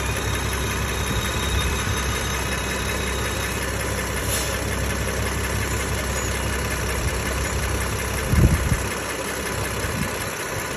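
BMW N55/S55 turbocharged inline-six idling, with faint high squeaking 'seagull sounds' over the engine noise, most likely the sign of a torn, no longer working PCV valve diaphragm. About eight seconds in there is a short low thump, the loudest moment.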